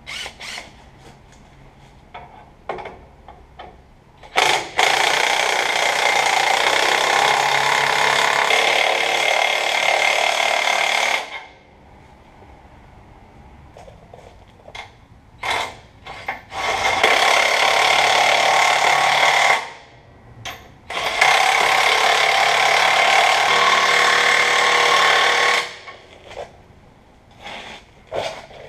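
Cordless impact wrench running bolts on a truck's rear air suspension bracket in three long rattling runs, with short metal clanks between them.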